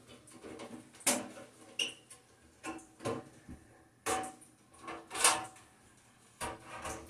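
Scattered knocks, clicks and rattles of a bathroom exhaust fan's sheet-metal housing being handled as wires are pushed inside it, about half a dozen over a few seconds.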